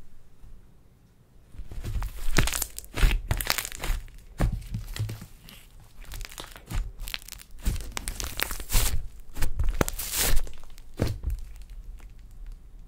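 Hands stretching, folding and pressing a large mass of slime, which gives irregular sticky crackles and pops. It is quiet for the first second or so, then the crackling runs on in dense clusters.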